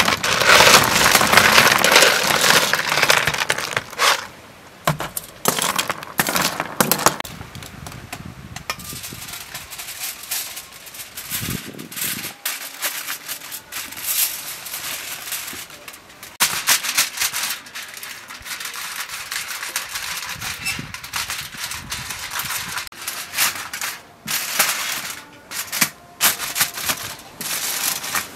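Blood cockle shells clattering out of a metal bowl onto aluminium foil, loudest in the first few seconds, then the foil crinkling and crackling in short bursts as it is folded and crimped around them.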